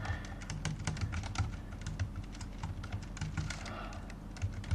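Typing on a computer keyboard: irregular key clicks, thicker in the first couple of seconds, over a low steady hum.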